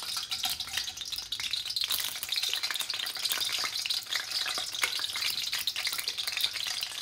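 Cooking oil sizzling and crackling in a karahi as spoonfuls of ghee drop in and melt, a steady dense crackle.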